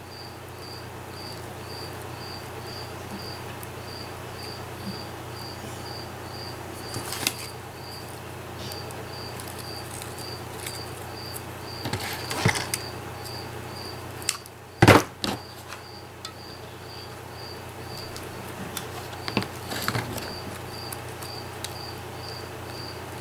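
Hands handling paper, ribbon and trims: a few scattered rustles and taps, the loudest a sharp knock about two-thirds of the way in. Under it, a steady high chirping, about two chirps a second, with short breaks.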